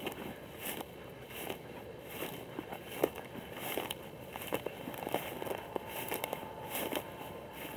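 Footsteps crunching and swishing through dry grass at a steady walking pace, about one step every three-quarters of a second, with the stalks crackling and a sharper snap about three seconds in.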